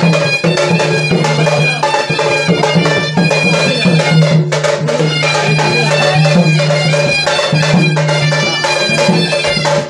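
Loud traditional music: a reedy wind-instrument melody over a steady bagpipe-like drone, with drum beats throughout.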